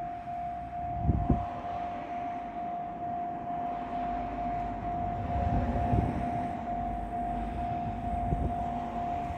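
Japanese level-crossing warning bell ringing: one electronic tone repeated in a rapid, even beat. Under it runs the low rumble of a freight train hauled by an EF210 electric locomotive, with heavy thumps about a second in, near the middle and near the end.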